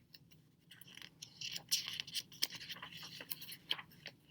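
Paper rustling and scraping with many small clicks, a picture-book page being turned by hand.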